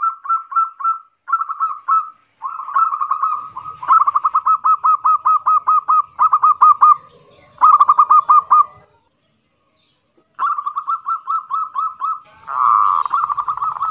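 Zebra dove (perkutut) cooing loudly in the 'kerot nguwor' style: a string of phrases, each a rapid run of clipped, evenly spaced notes, with a short break after about nine seconds.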